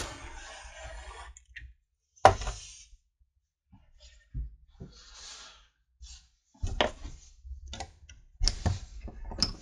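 A canister gas torch hisses and cuts off about a second in. Then come sharp metal knocks and clicks, one loud knock and later a cluster of them, as pliers strain and knock a freshly soldered bolt clamped in a steel bench vise to test the joint.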